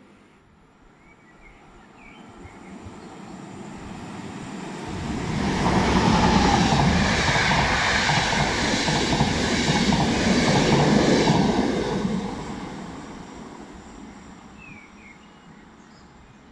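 ÖBB passenger train of coaches with a red electric locomotive passing through the station without stopping. The rush of wheels on rails builds over the first few seconds, stays loud for about six seconds and then fades away.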